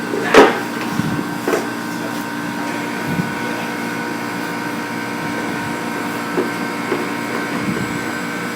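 Steady machine hum with a sharp knock about half a second in and a few fainter knocks after.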